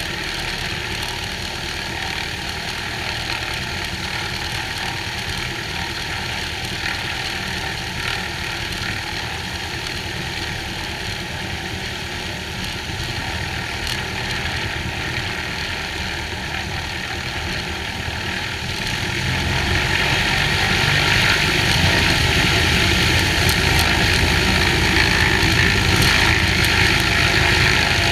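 Cessna 182H's six-cylinder Continental O-470 engine and propeller running steadily at low power. About two-thirds of the way through, the throttle is opened and the engine grows louder, holding at the higher power.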